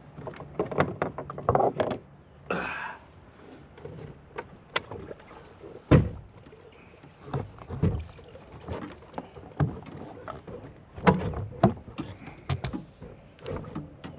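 Knocks and clunks of gear against the plastic hull and fittings of a Native Titan X 12.5 fishing kayak as the trolling motor is raised and stowed. The loudest clunk comes about six seconds in, and more clusters of knocks follow near the end.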